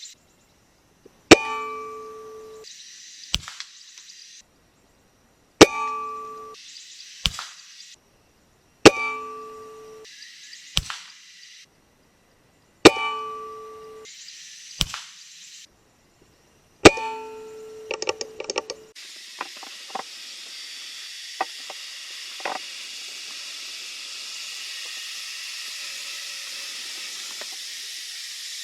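Five sharp, very loud strikes a few seconds apart, each with a ringing tone that dies away over about a second and a smaller click after it. A steady high hiss follows in the last third.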